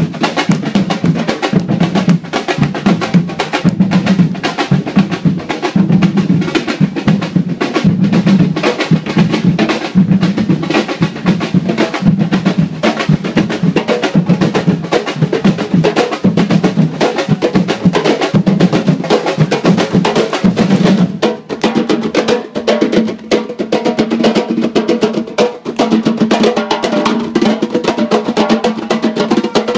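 Large samba-reggae drum band playing live: surdo bass drums, snare drums and tall hand-played drums in a steady driving rhythm. About two-thirds of the way through, the groove dips briefly and shifts to a new pattern.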